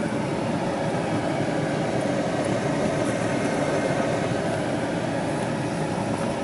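Steady drone of a vehicle on the move: engine and road noise with a constant hum, unchanging throughout.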